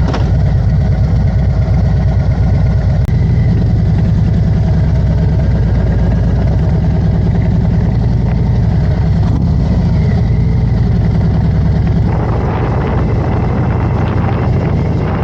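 Harley-Davidson Road Glide's V-twin engine running steadily under way, with a pulsing low exhaust beat. About twelve seconds in the engine eases slightly and wind noise on the microphone grows.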